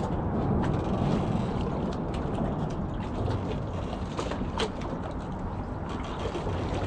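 Wind rumbling on the microphone over water lapping around a small boat, with a few faint light knocks.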